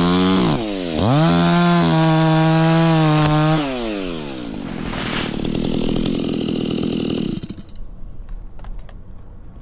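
Stihl two-stroke chainsaw at high revs. It drops briefly, revs up again and holds, then falls back to idle about four seconds in and shuts off about seven seconds in.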